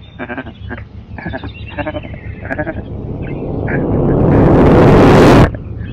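Wavering, voice-like calls, then a rush of noise that swells up to very loud and cuts off abruptly near the end.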